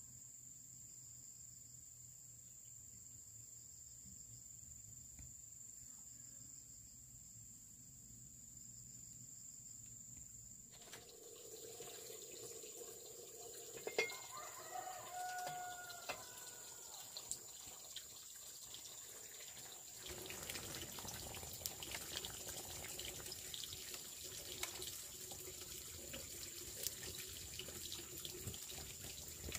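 Water running and splashing, with scattered light knocks, after a quiet first third; a brief bird call about halfway through.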